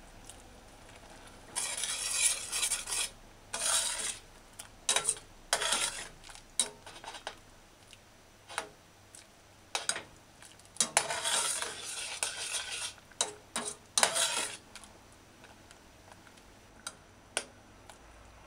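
Metal spoon stirring a coconut-milk stew in a stainless steel saucepan, scraping and clinking against the pan in irregular strokes. The stirring stops about three quarters of the way through, followed by a couple of light clicks.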